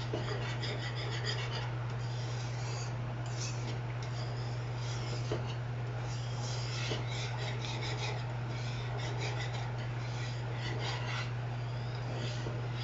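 Wire whisk scraping round a nonstick pan through thickening maja blanca, a cornstarch and coconut-milk pudding, in quick, irregular strokes. A steady low hum runs underneath.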